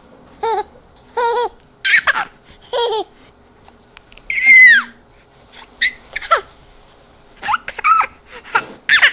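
High-pitched baby-like cooing and giggling in short separate calls, with a loud squeal that falls in pitch about four and a half seconds in.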